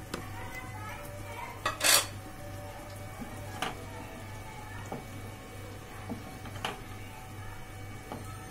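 Wooden spatula stirring paneer cubes into thick curry gravy in a non-stick kadai, scraping and knocking against the pan several times, with one loud clatter about two seconds in.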